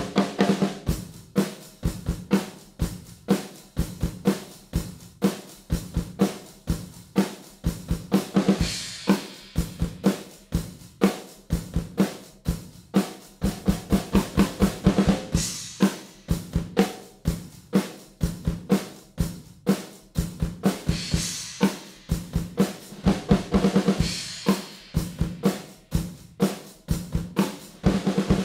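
Drum kit played with sticks: a continuous run of snare and bass drum strokes, with cymbal crashes washing in several times along the way.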